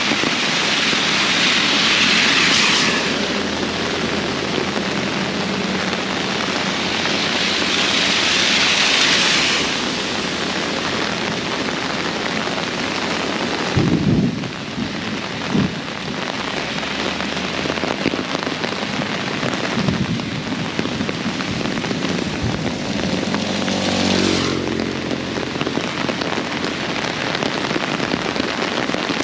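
Very heavy rain pouring down in a steady hiss, swelling twice in the first ten seconds. Two brief low thumps come about halfway through, and a short pitched hum passes near the end.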